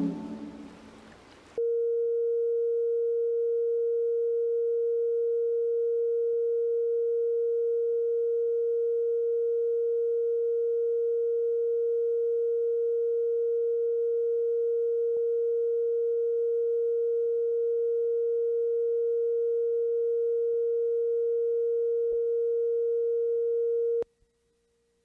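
Music fading out, then a steady electronic test tone, one unchanging pitch, holding for about twenty seconds before cutting off suddenly.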